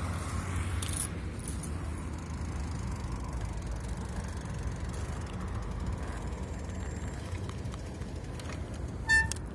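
Steady low rumble of a bicycle ride, with wind on the microphone, tyres on pavement and light rattling from the bike. About nine seconds in, a short, sharp beep cuts in.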